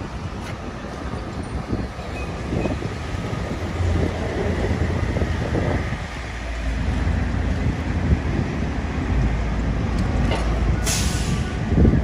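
FDNY fire engine's diesel engine running as the truck drives past, growing louder in the second half. A short hiss of air, like an air brake, comes about eleven seconds in.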